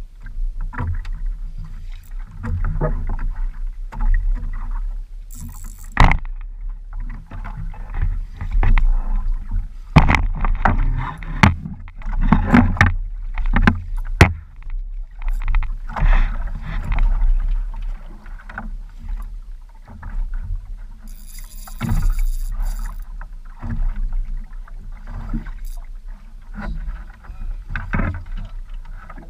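Water sloshing and slapping against a small outrigger boat's hull, with irregular sharp knocks and creaks from the boat and its bamboo outrigger. A short high hiss comes about five seconds in and again a little past twenty seconds.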